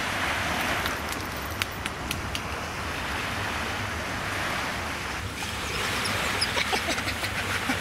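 Small waves washing onto a sandy shore, a steady hiss of surf, with wind rumbling on the microphone.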